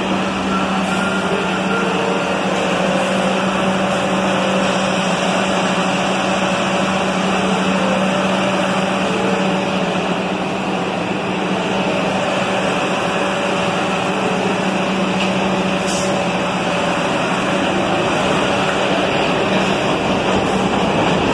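New York City subway train running through an underground station: a loud, steady rush of wheels on rails, with a constant low hum and wavering higher whines over it.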